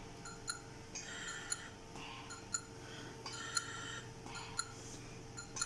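Quiet room tone: a faint steady hum with a soft tick about once a second and a couple of brief hissy rustles.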